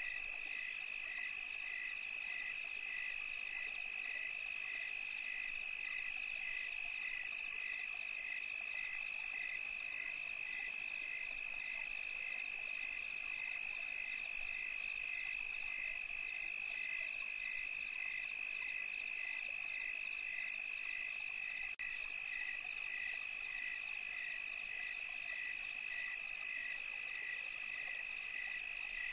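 Night chorus of calling insects: a steady high-pitched trill, with a second, slightly lower call pulsing evenly a little more than once a second.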